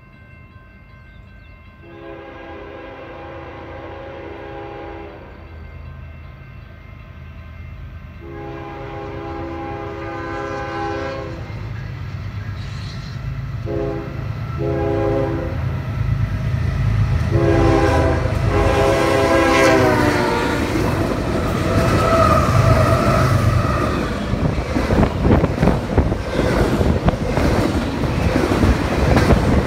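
Approaching diesel freight train sounding its horn in a series of blasts: two long, then two shorter ones, then a long one ending about twenty seconds in, over an engine rumble that grows steadily louder. The locomotives and double-stack container cars then pass close by with loud rumbling and wheel clatter.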